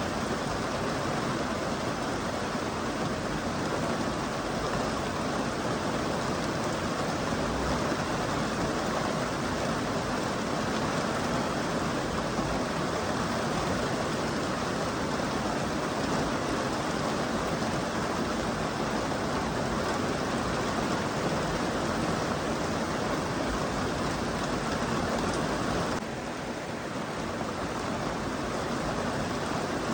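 Steady rain, an even hiss of falling water, dipping slightly in level near the end.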